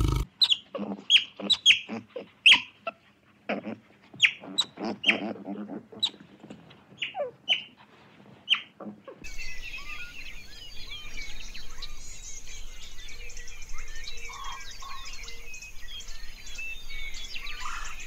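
Birds calling: first a run of sharp, separate calls that fall in pitch, then, from about nine seconds in, a dense, steady chorus of small chirps and twitters.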